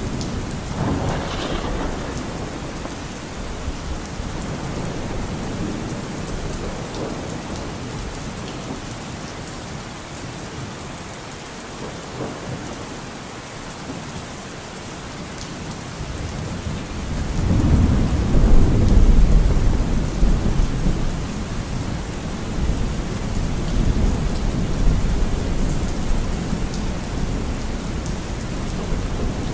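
Steady rain with rolls of thunder. A long, low thunder rumble swells about 17 seconds in and fades away over several seconds.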